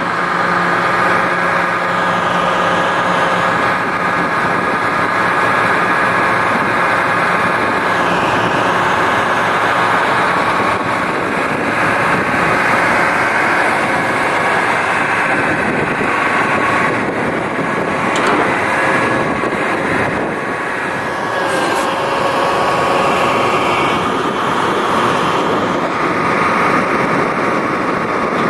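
The 1998 Mack DM690S truck's Mack EM7 12.0 L inline-six turbo diesel engine running steadily, with a steady whine over the engine noise.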